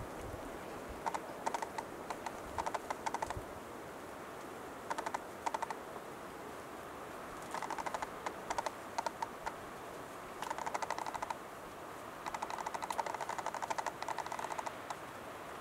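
Male western capercaillie's display song: bursts of rapid clicks every couple of seconds, the bursts growing longer toward the end.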